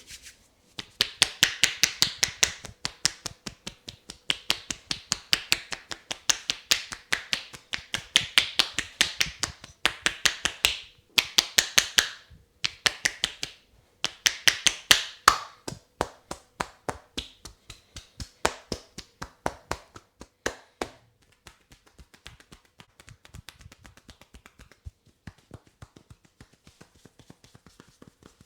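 Quick, sharp finger clicks from a barber's tapping head massage, with the hands striking the head so the loose fingers click together. They come in rapid runs of about a second each, then turn faint and sparse for the last several seconds.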